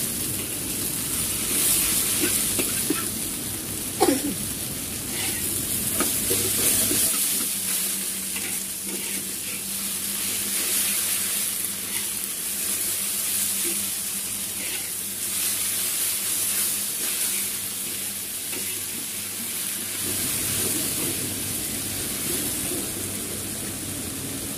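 Water spinach sizzling in hot oil in a wok as it is stir-fried, with the metal spatula scraping and tapping against the pan. A louder clatter comes about four seconds in.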